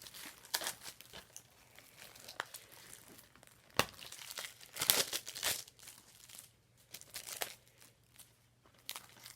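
Plastic shrink-wrap being torn and crinkled off a movie disc case, in irregular crackles with the loudest rips about four to five seconds in.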